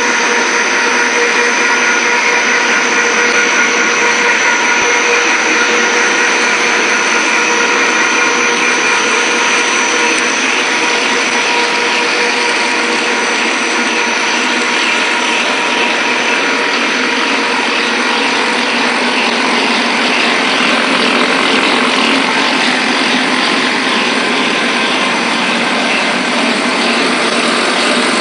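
Snack-food extrusion machinery running: electric motors and the extruder's screw drive make a steady mechanical whir with several high steady whining tones over it.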